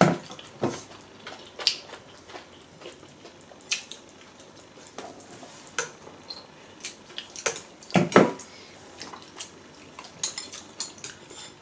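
Eating utensils clinking and knocking against bowls and the hotpot in scattered short taps, the loudest pair about eight seconds in.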